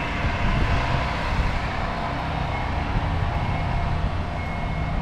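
Steady running and road rumble inside an Irizar IE-TRAM electric bus in motion, with a faint thin high tone joining about halfway through.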